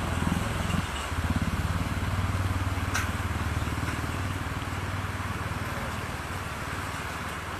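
Steady roar of a river in flood, fast muddy water rushing against and over a suspension footbridge, with a deep rumble underneath. A single faint click comes about three seconds in.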